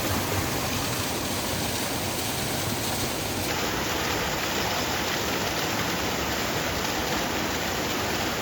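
Mountain waterfall running, a steady rush of falling water.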